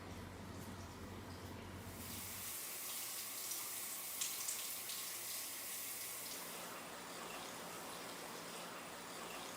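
Hot-spring water pouring steadily into a bath, with a few small splashes; the flow comes in about two seconds in.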